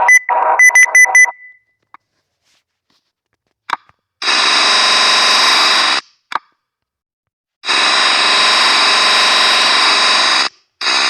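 Electric-shock sound effect: a harsh, loud electric buzz held for about two seconds, then again for nearly three seconds, with a brief burst at the end. It is preceded by a few quick high beeps and a couple of small clicks.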